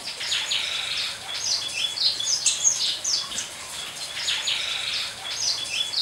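A flock of small aviary finches chirping, with many short, high calls overlapping one another.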